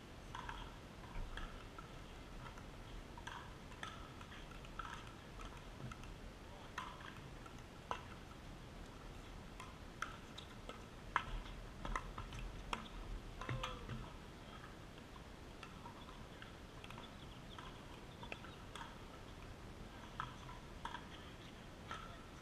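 Outdoor pickleball play: a run of sharp pops as paddles hit the plastic ball in a rally between about 8 and 14 seconds in, with scattered shoe squeaks and scuffs on the hard court.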